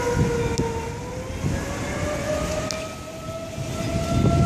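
Outdoor tornado warning siren wailing, its pitch dipping slightly and then rising slowly, over a low, rough noise.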